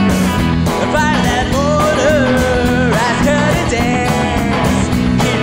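Rock band playing an instrumental passage: an electric guitar lead with bending notes over bass guitar and a steady drum beat.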